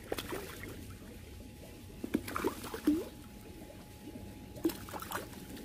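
A hooked crucian carp splashing and thrashing at the water's surface in three short spells, a couple of seconds apart.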